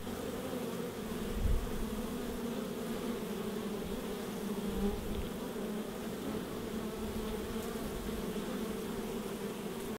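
Honeybees buzzing in a dense crowd at a hive entrance: a steady hum, with a low thump about a second and a half in and a softer one halfway through.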